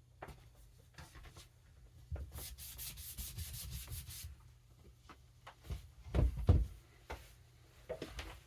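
Knife blade stroked quickly across a wet fine India sharpening stone: a rasping run of strokes lasting about two seconds, followed by a few low knocks about six seconds in.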